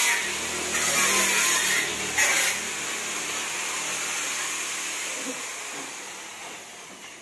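A power or air tool running in short bursts, a loud hiss over a low hum. After about two and a half seconds it gives way to a steadier hiss that fades out.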